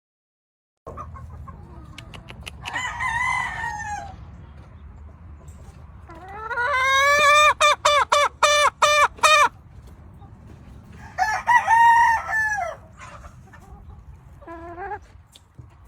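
Gamefowl roosters crowing over a low steady rumble: a short crow about three seconds in, a long loud crow from about six seconds in that rises and then breaks into rapid pulses, another crow around eleven seconds, and a brief call near the end.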